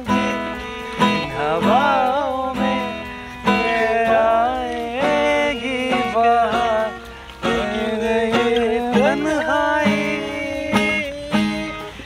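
Acoustic guitar strummed in a steady rhythm, with a voice singing a gliding melody over it.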